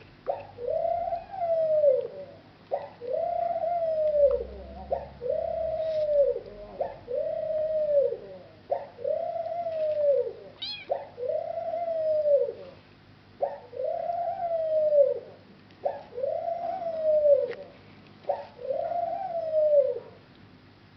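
An animal calling over and over: about ten long calls, each rising then falling in pitch, roughly one every two seconds.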